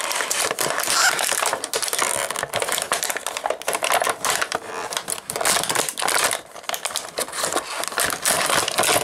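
Rigid plastic blister packaging on a toy's card crackling and clicking as it is handled and turned over, a dense run of small irregular clicks.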